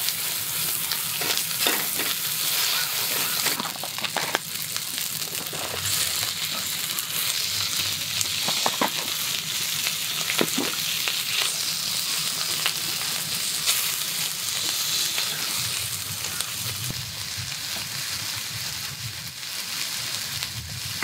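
Zucchini slices and garlic sizzling in hot oil in a black frying pan, a steady frying hiss with a few light clicks and pops as pieces are pressed down and shrimp are dropped in.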